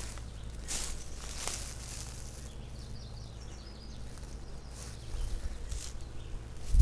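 Footsteps and brushing through tall grass over a steady low rumble on the microphone, with a faint high twittering about three seconds in. A burst of heavy low thumps near the end is the loudest sound.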